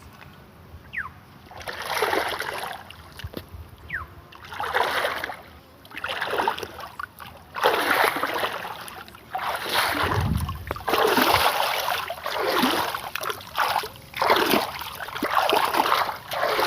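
Water splashing and sloshing in repeated surges, roughly every one and a half to two seconds.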